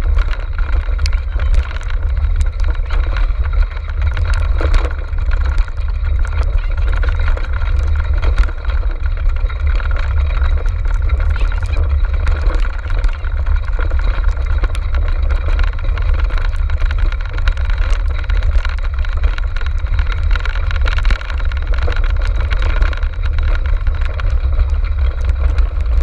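Wheeled dog cart rolling at speed along a grass and dirt trail, heard from a camera mounted on the cart: a continuous low rumble of wind and vibration with many sharp rattling clicks.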